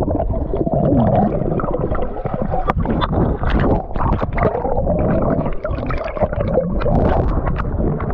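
Muffled swimming-pool water heard through a GoPro held underwater: continuous gurgling and sloshing with frequent short splashy crackles, and wavering low tones rising and falling underneath.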